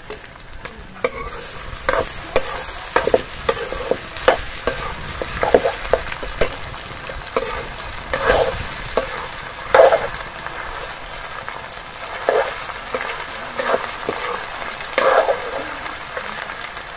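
Pork pieces sizzling in their own rendered fat in a metal kadai, stirred with a metal spoon that scrapes and clinks against the pan about once or twice a second over the steady hiss of frying.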